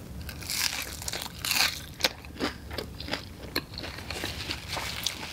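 Close-miked eating: a bite into crisp food with a run of loud crunches in the first two seconds or so, then softer, scattered chewing crunches.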